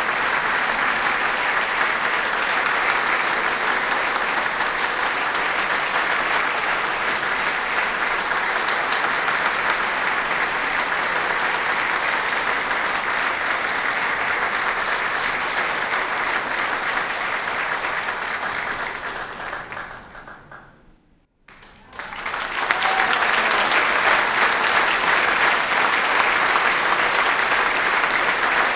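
Theatre or concert audience applauding steadily; about twenty seconds in the clapping fades away to near silence, then a fresh round of applause starts abruptly.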